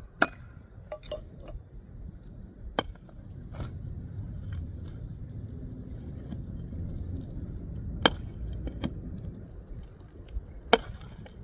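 Light metal-on-metal taps on a roofing nail under a lifted asphalt shingle, a few seconds apart: the nail is being tapped down slightly so a pry tool can get under its head to pull it. A low rumble is heard in the background.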